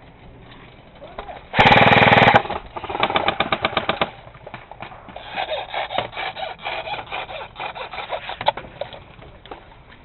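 Airsoft guns firing in full-auto bursts: one loud close burst of under a second about a second and a half in, followed by quieter strings of rapid clicking shots through the middle.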